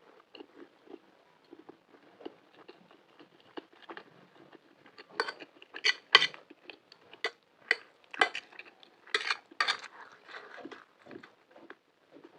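Cutlery clinking and scraping against a dish while eating macaroni: a string of soft clicks, with a cluster of louder, sharp clinks from about five to ten seconds in.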